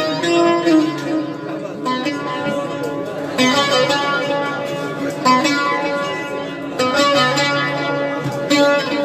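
Instrumental music led by a plucked string instrument playing a melodic line.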